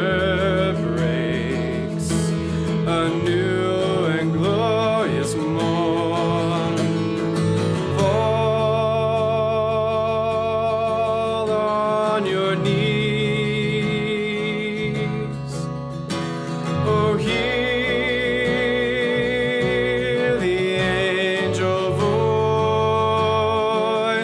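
Slow music with acoustic guitar accompaniment and long held melody notes with vibrato, changing chord every few seconds.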